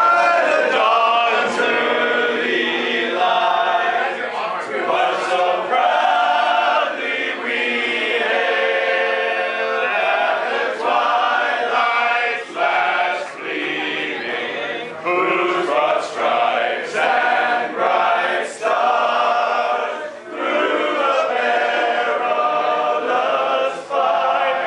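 A group of men singing a cappella in harmony, with brief pauses between phrases.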